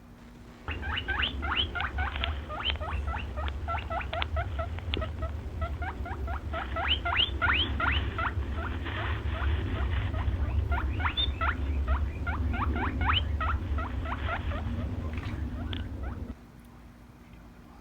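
A small animal giving a rapid run of short squeaks, several a second, each rising in pitch, over a low rumble. It starts about a second in and stops shortly before the end.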